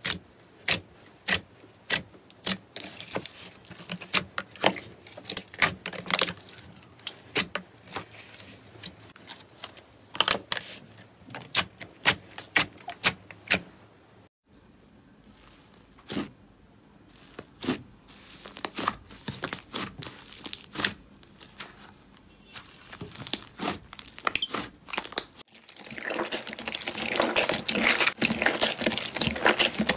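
Fingers pressing into glossy slime in a tray, each press giving a sharp sticky click or pop, about one or two a second. Near the end, clear slime is stretched and squeezed in a bowl, making a dense, continuous crackle.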